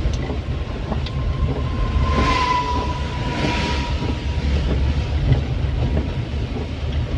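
Cabin noise of an Isuzu Elf minibus under way: a steady low rumble of engine and road, with swells of hiss two or three times and a faint whistling tone between about one and four seconds in.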